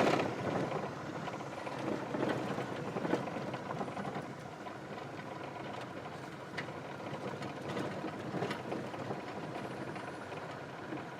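Small motorhome driving slowly on a dirt road, heard from inside the cab: steady engine and road noise with scattered light clicks and rattles.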